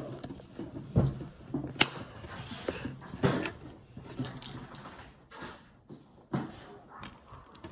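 Handling noises: small plastic pieces and packaging being picked up and set down, with scattered light clicks and knocks about a second or two apart.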